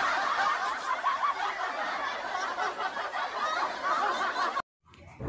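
A group of people laughing, many voices at once, which cuts off abruptly about four and a half seconds in.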